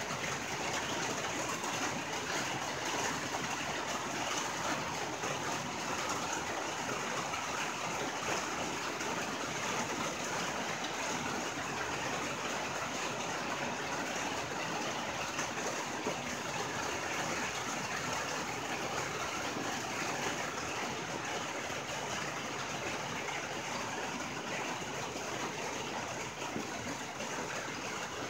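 Steady rain falling on a tin roof, an even, unbroken hiss of drops on metal.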